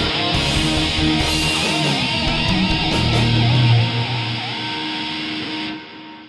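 Rock instrumental: live electric guitars through an amp modeller over programmed drums and synth bass, with a lead guitar note that wavers up and down. Near the end the band stops and a held chord fades away.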